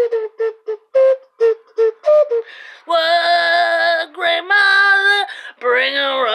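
A woman's wordless high-pitched vocalising: a run of short, clipped notes for the first two and a half seconds, then longer held, wavering sung notes.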